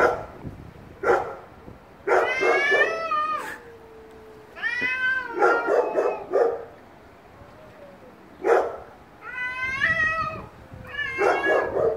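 Two domestic cats yowling at each other in a territorial standoff: about four long, wavering yowls, lower drawn-out moans between them, and a few short sharp sounds.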